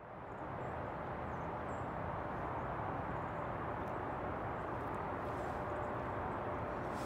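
Steady rushing outdoor ambience, fading in at the start, with a few faint high chirps from birds.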